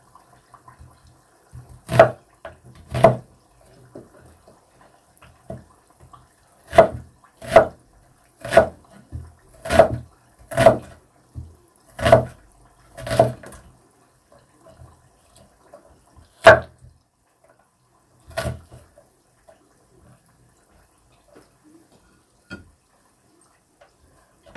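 Kitchen knife chopping a peeled onion on a wooden cutting board: about a dozen sharp, irregular knife strikes on the board, bunched together in the first half, then two more spaced out before it falls quiet.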